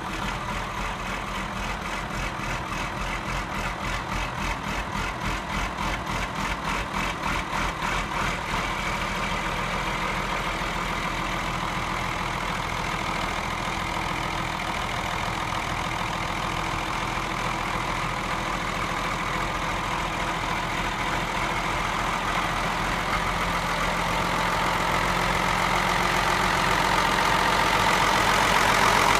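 Ford TW-5 tractor's six-cylinder turbo diesel engine idling steadily, getting louder near the end as the engine bay is approached.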